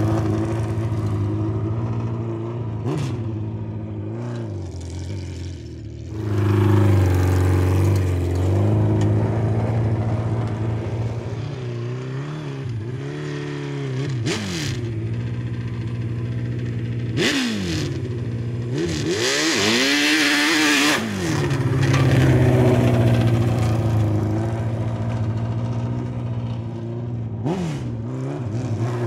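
Suzuki GSX-R 1100 hill-climb motorcycle's inline-four engine revving up and down again and again, its pitch climbing and falling with each blip. During the highest revs, about two-thirds of the way through, a harsh rushing noise joins in, and a few sharp knocks are scattered through.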